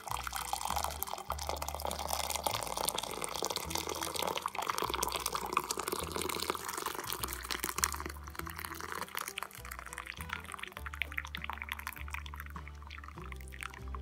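Hot water poured in a steady stream from a metal pot into a ceramic cup, splashing and filling. The pour is strongest over the first half or more and thins toward the end. Background music with a steady bass line plays throughout.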